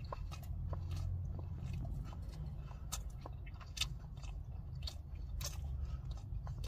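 A person chewing a mouthful of turkey Swiss sandwich on firm, tough-style bread, with many short, irregular clicks of chewing, over a low steady hum.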